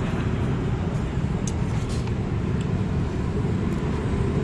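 Steady low background rumble, with a few faint light clicks of metal chopsticks and spoon against an aluminium ramyeon pot.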